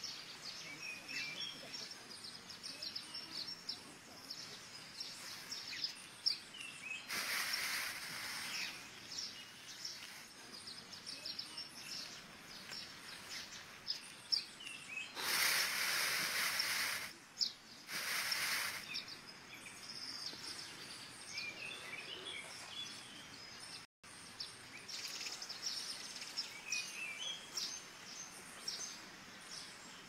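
Small birds chirping in short high notes over steady outdoor background noise. Three rustling swells of noise rise and fall, at about seven, fifteen and eighteen seconds in.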